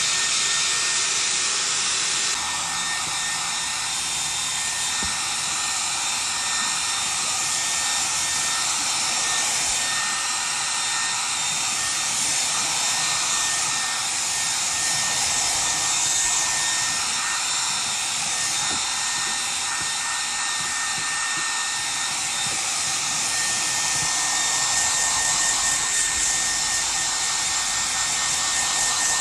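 Handheld hair dryer running steadily as it blows a dog's wet fur dry: an even rush of air with a thin, steady whine.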